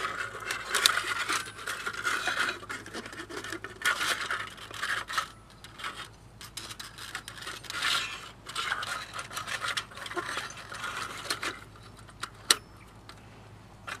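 Folding stainless steel stove and a small gas burner being handled and fitted together: light metal clinks, rattles and scrapes, then a single sharp click near the end.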